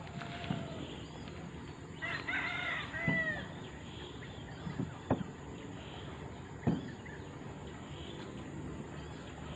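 A rooster crows once about two seconds in, a drawn-out crow lasting over a second that falls in pitch at the end. Two sharp knocks come a few seconds later.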